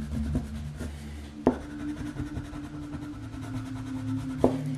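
Black felt-tip marker rubbing and scratching across paper as it colours in, with two sharp ticks of the marker tip, about a second and a half in and near the end.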